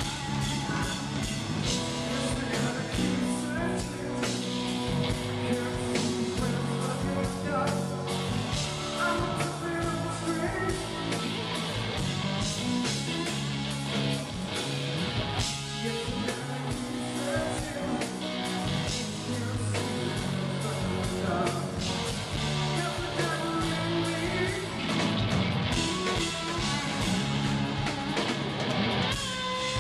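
Live rock band playing: electric guitar from a Telecaster-style guitar over bass and drums, with a male lead vocal, continuous throughout.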